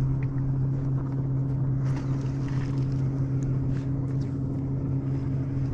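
A boat motor running at a steady pitch, giving a low, even hum, with a few faint clicks over it.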